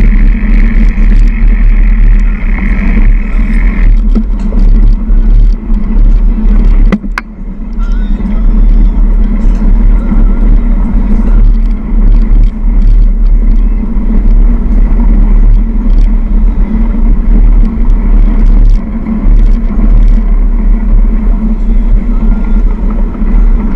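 Loud, steady low rumble of a handlebar-mounted action camera as a mountain bike rolls over a dirt surface: wind, tyre and frame vibration on the camera's microphone, with crowd voices in the background. The rumble drops briefly about seven seconds in.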